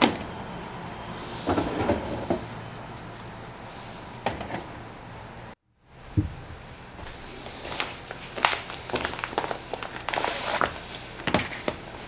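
Scattered clicks and knocks of thin stainless-steel fire stand parts being handled and set down, with a short scraping rustle about ten seconds in.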